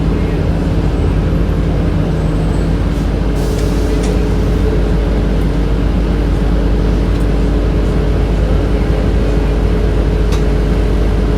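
Steady hum of a 2007 Orion VII transit bus's HVAC system, heard from inside the bus over the low rumble of the bus running. A lower hum drops out about three seconds in, and a few light rattles click now and then.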